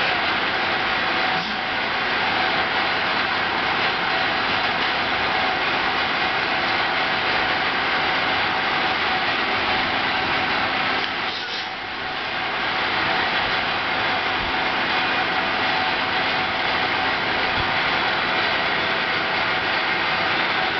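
Steady whir and hiss of casting-room equipment running: the fume extractor over an electric melting furnace, with a faint hum. The level dips briefly a little past the middle.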